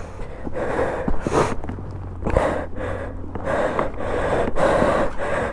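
A person breathing hard close to the microphone, a quick string of loud breaths, about one to two a second: out of breath from the effort of riding and picking up a fallen motorcycle.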